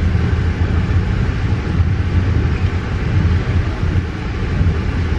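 Steady low rumble of an Amtrak Surfliner passenger train under way, heard inside the coach.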